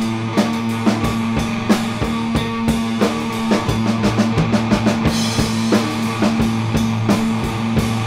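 Rock music from a band recording: regular drum hits over sustained low notes, with a bright crash about five seconds in.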